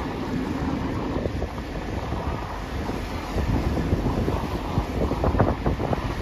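Wind buffeting the microphone in a steady rumble, with harder, irregular gusts from about three seconds in.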